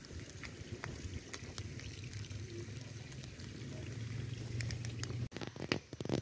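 Open wood fire crackling with scattered sharp pops over a low steady rumble. About five seconds in this breaks off and cooking oil is poured from a plastic jerrycan into a metal cooking pot.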